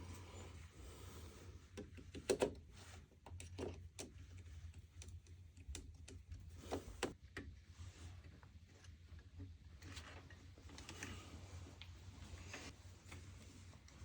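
Irregular light clicks and knocks of PC parts and tools being handled during assembly, loudest in a quick cluster about two seconds in, over a low steady hum.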